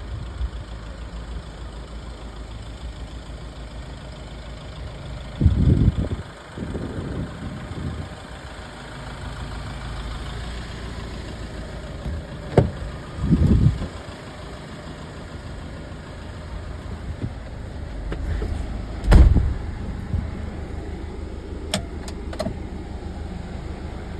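Iveco Daily 72C18 truck's diesel engine idling steadily, with a few loud thumps and sharp knocks over it, the sharpest a little past the middle and about three quarters of the way in.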